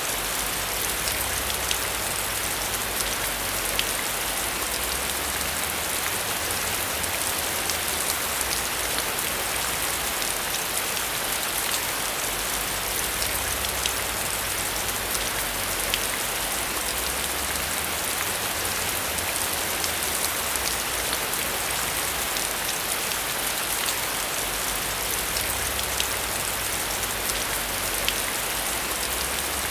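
Heavy rain falling steadily on a metal roof: a dense, even hiss with many small drop taps throughout.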